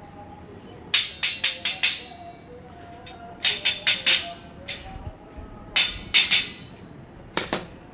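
A claw hammer tapping a steel slotted-angle rack beam into its upright, in quick runs of sharp metallic strikes: about five, a pause, about five more, then three or four and a last pair near the end.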